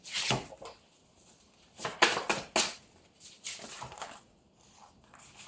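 Tarot cards being handled and shuffled: short rustling snaps in a few clusters, loudest about two seconds in, with quiet gaps between.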